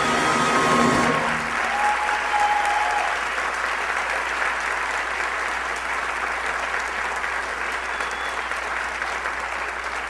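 Audience applauding a musical number. The last held chord of the music ends about a second and a half in, and steady applause carries on.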